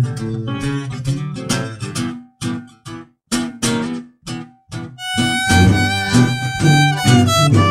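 Instrumental string-band music: acoustic guitar strumming short, choppy chords with brief pauses between them, joined about five seconds in by a violin playing a held, sliding melody.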